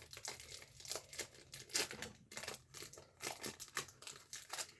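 Hockey card pack wrapper being opened slowly and gently, crinkling in many small irregular crackles.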